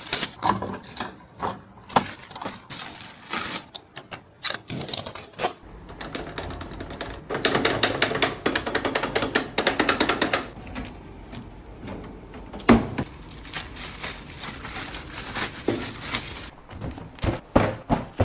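Clicks, knocks and rattles of items being handled and unpacked, with a stretch of rapid clattering in the middle.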